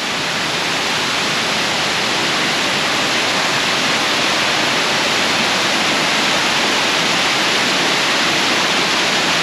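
Small waterfall's water pouring, a loud steady rush.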